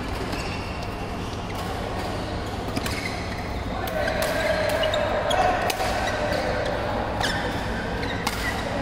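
A series of irregular sharp knocks and thuds, like a ball or rackets being struck, echoing in a large hall, with voices in the background.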